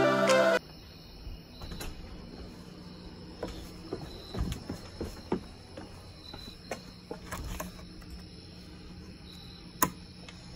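Background music cuts off about half a second in, leaving crickets chirping steadily at night. A few faint clicks come through, the sharpest near the end.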